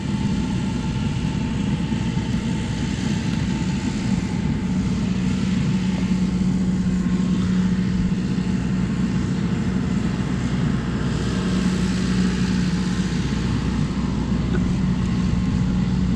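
Steady running of a metal-melting furnace's burner: a constant rushing noise with a low hum that fades in and out.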